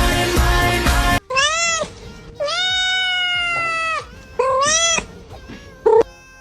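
Music cuts off about a second in, then a cat meows three times: a short meow, a long drawn-out one of about a second and a half, and another short one.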